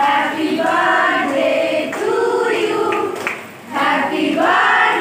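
A group of young women singing together without accompaniment, in held notes, with a short break about three and a half seconds in.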